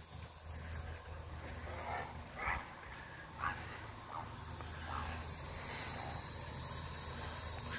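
Outdoor ambience: a steady high insect drone over a low hum, with about six short, faint calls spaced roughly a second apart.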